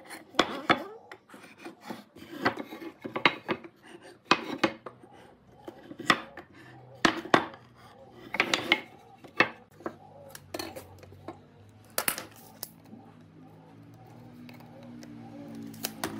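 Workshop handling noise: a steel-rod marking gauge and pine boards clinking, tapping and knocking on a wooden workbench in scattered, irregular strokes. In the last few seconds, background music fades in.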